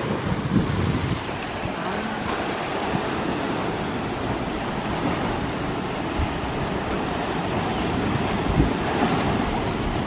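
Sea waves surging and splashing against a rocky shore in a steady wash of surf, with wind buffeting the microphone.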